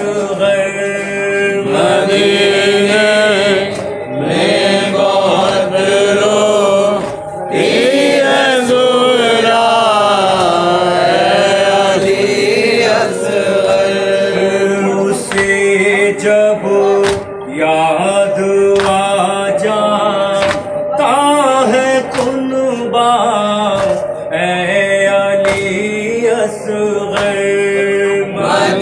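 A man chanting a Shia noha (Urdu lament) into a microphone in a mournful sung melody, with other mourners' voices joining and holding notes beneath him. Sharp slaps of chest-beating (matam) come in runs at about one a second.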